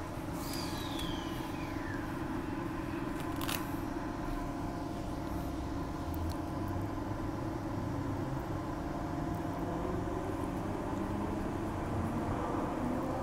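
Inside a Transperth A-series electric multiple unit: a brief falling whistle-like tone, then the doors shut with a thud, and the train starts off, its traction motors whining higher in pitch as it gathers speed near the end over a steady running hum.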